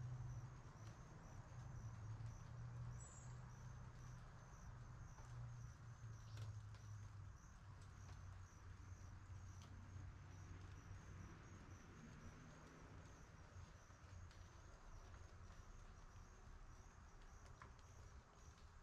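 Faint outdoor ambience: insects chirping in a steady, even rhythm, over a low hum that fades away during the first half.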